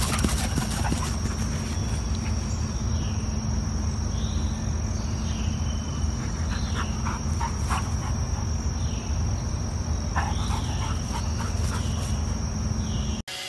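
Steady high-pitched drone of insects, over a low rumble, with scattered short clicks and brief sliding calls; it cuts off abruptly near the end.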